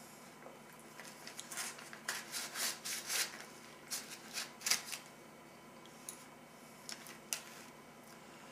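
MRE foil retort pouch being cut and torn open with a knife: a run of crackly crinkling and tearing rustles for a few seconds, the loudest about halfway through, then two short crinkles near the end.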